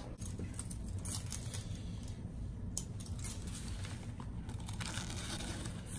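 Faint scraping, rustling and clicking as packing tape is cut along the seam of a cardboard shipping box, over a faint steady low hum. One sharper click comes a little past three seconds in.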